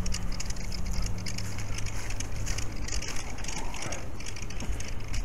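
Rustling, crackling handling noise from a small camera being carried, over a low steady hum.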